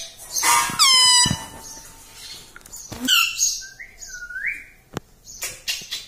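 Indian ringneck parakeet calling: a loud harsh call that falls in pitch about a second in, a short call near three seconds, then a whistled note that rises at its end around four seconds. A few light clicks follow near the end.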